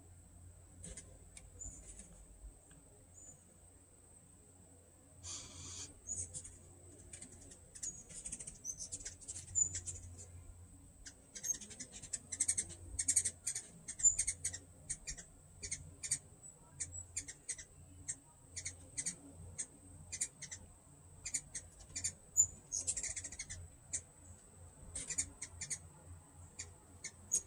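Hummingbirds chipping and chattering around feeders, as in squabbling over the feeders. The rapid, short, high chips are sparse at first and come thick and fast from about a third of the way in.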